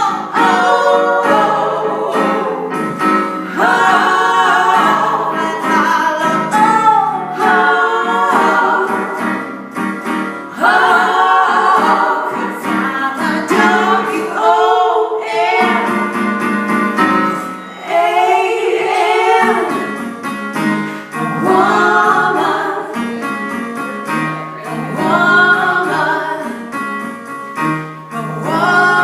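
Women singing a song together in rehearsal, with guitar accompaniment.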